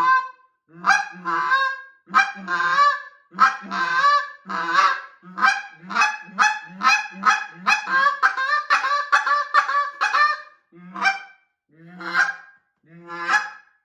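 Custom Flame Box Elderburl goose call blown by a caller, sounding a series of short goose honks, many with a low growled bottom. About six seconds in, the notes speed up into a fast run of quick clucks for several seconds, then slow back to a few spaced honks near the end.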